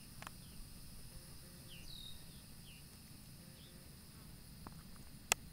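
Steady high insect drone with a few short, falling bird chirps scattered through it, and one sharp click near the end.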